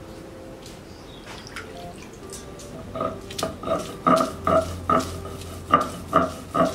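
Stone roller knocking and grinding against a flat stone grinding slab (shil-pata) as green chilies are crushed. The strokes start about three seconds in and come about two to three a second, each a sharp knock with a brief ring.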